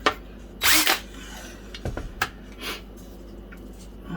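Small electric drill run in reverse in a short burst, with clicks and knocks from handling. The 1/8 bit has grabbed in a soft brass rivet and is being backed out.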